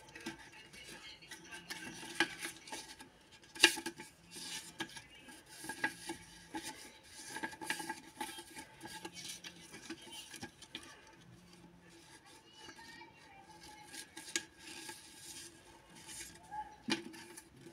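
Sheets and folded boxes of white paper being handled and shuffled: irregular crisp taps, flicks and rustles, with a sharper snap about four seconds in and another near the end.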